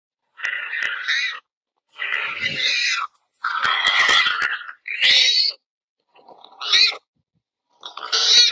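Warthog giving about six distress squeals, each lasting around a second with short gaps between, as a leopard seizes it by the neck.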